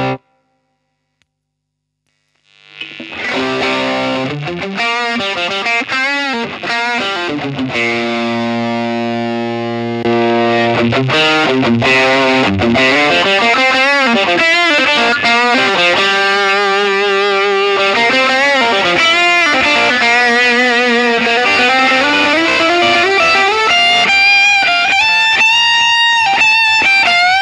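Electric guitar (a Hahn 228) played through effects pedals into a Fender Blues Jr amp, with a distorted, effected tone. After about two seconds of silence it comes in with sustained notes that bend and waver in pitch.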